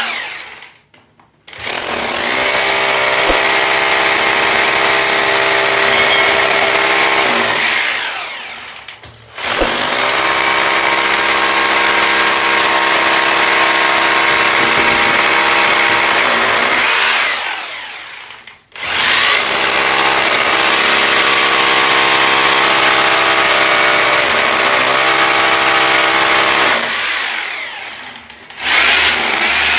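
Bosch heavy-duty rotary hammer drill boring into a brick wall with a 16 mm bit, drilling a ring of holes around a marked circle to break through the wall. It runs in three long stretches of about six to eight seconds, the motor winding down at each stop, and a fourth starts near the end.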